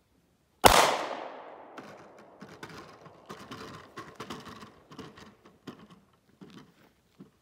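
A single handgun shot about half a second in, very loud and echoing away over a second or so. After it come scattered faint knocks and rustles.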